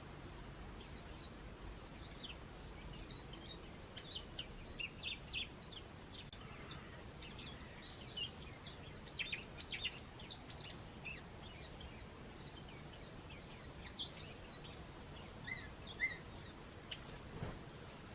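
Small garden birds chirping: many short, high calls overlapping, busiest in the first half and then thinning to scattered single notes.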